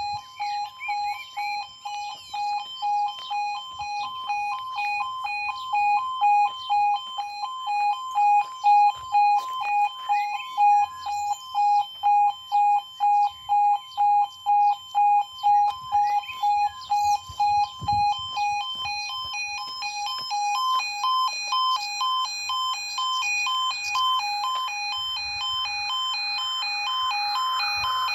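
Level crossing audible warning alarm sounding a steady pulsing beep, about two pulses a second, the signal that the crossing is closing for an approaching train. Birds chirp now and then, and a rushing noise builds up toward the end.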